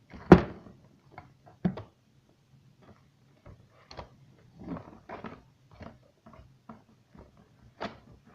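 Irregular knocks, clicks and light scraping of objects being handled, with one loud thump about a third of a second in.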